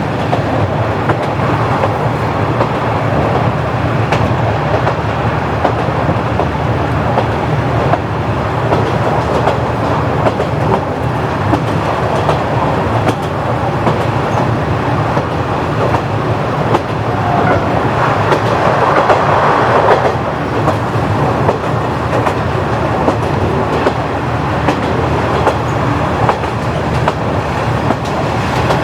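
KiHa 40-series diesel railcar with its original DMF15HSA diesel engine running along the track, a steady rumble with the wheels clicking over rail joints. A louder noise rises for a couple of seconds about eighteen seconds in.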